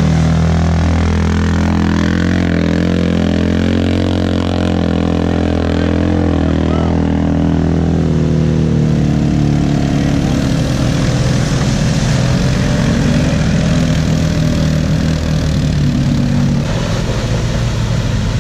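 Off-road vehicle engines: a steady engine hum close by, while ATVs and then a Polaris RZR side-by-side drive through a muddy water hole. In the second half the engine sound grows rougher, mixed with the wash of water splashing.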